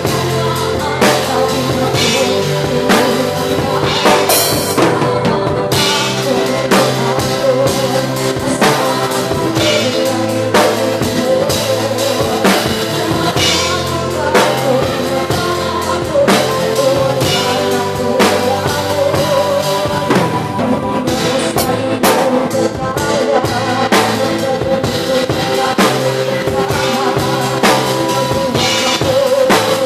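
Live band music, loud, with a drum kit keeping a steady beat of bass drum, snare and cymbals over bass and melody.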